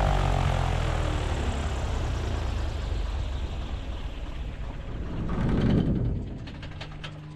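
Light aircraft's piston engine and propeller idling, its sound steadily dying away over the seconds, with a brief louder swell about five and a half seconds in and a few clicks near the end.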